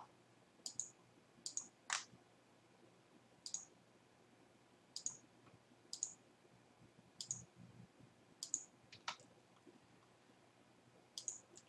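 Computer mouse buttons clicking faintly: about a dozen short, sharp clicks at irregular intervals, some in quick pairs.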